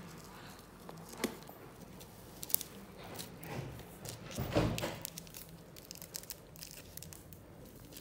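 Soft rustling and small clicks of fingers picking at and peeling paper backing off sticky sand-art boards, with one louder rustle or knock about four and a half seconds in.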